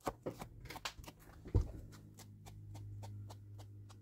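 Ink blending tool dabbed quickly against the edges of a folded paper pocket: a fast run of light taps, about five or six a second, with one heavier thump about one and a half seconds in.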